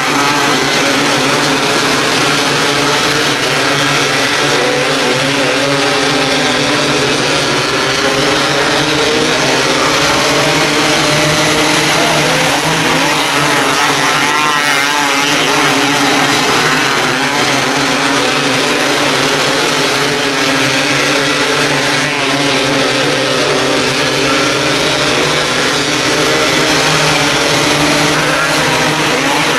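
A pack of 270-class micro sprint cars racing, many small engines running at high revs together, their pitch rising and falling as they go through the turns. About halfway through, one engine stands out briefly as a car passes close.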